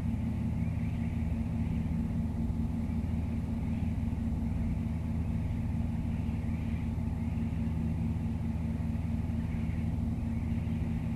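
Steady low mechanical drone, an engine-like hum with even overtones that does not change in pitch or level.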